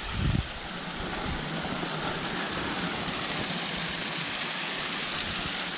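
Waterfall rushing, a steady even wash of falling water. A brief low thump about a quarter second in.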